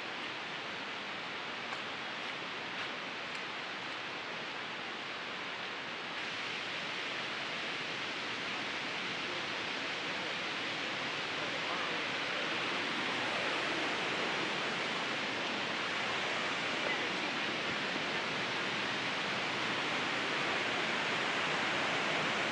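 Steady rush of falling and running water from the Wallace River and the Lower Falls, growing gradually louder as the falls come nearer.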